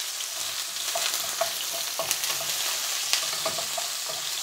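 Chopped onion and garlic sizzling in hot oil in a wok, stirred with a wooden spatula that makes small scraping taps against the pan.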